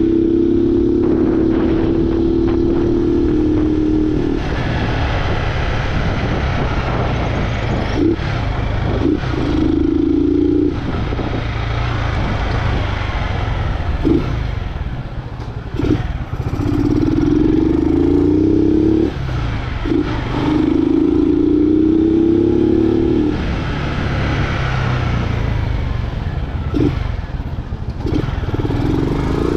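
Honda Fan 125's single-cylinder four-stroke engine, running without its air filter and through a gutted ('varetado') exhaust, pulling hard several times. The pitch climbs on each pull and breaks off sharply at each shift or throttle lift.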